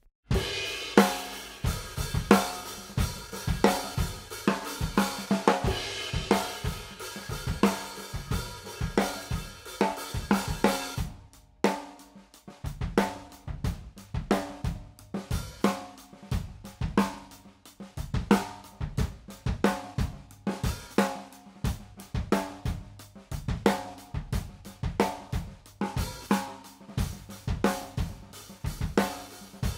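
Recorded acoustic drum kit (kick, snare, hi-hats and cymbals) played through a Universal Audio 1176LN compressor plug-in with no ratio selected and the input driven, so the unit adds saturation rather than compression. The playback stops briefly about a third of the way through and then starts again.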